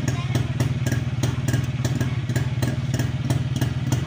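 Kawasaki HD3's 125 cc two-stroke single-cylinder engine, freshly overhauled, idling steadily with a light regular tick about three to four times a second.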